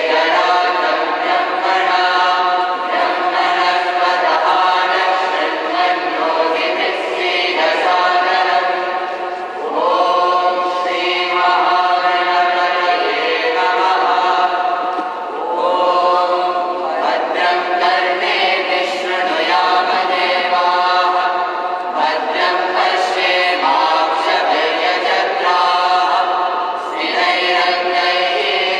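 A group of voices chanting in unison, sung in long phrases broken by short pauses every few seconds.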